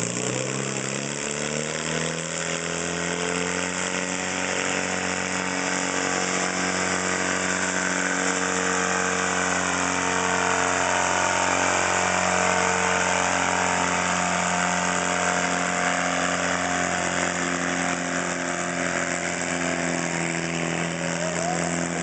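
Mini pulling tractor's engine climbing in revs as the pull gets under way, then running hard and steady at high revs under load while it drags the weight-transfer sled down the track.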